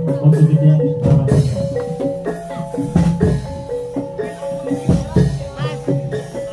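Live jaranan band music played through a big sound system: gamelan-style metal mallet instruments ring short repeated notes over drums, with a heavy bass hit about every two seconds.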